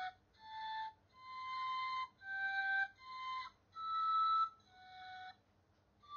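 Music: a slow melody of single held notes on a flute-like instrument, each lasting about half a second to a second with short breaks between them, and a pause near the end before the next note.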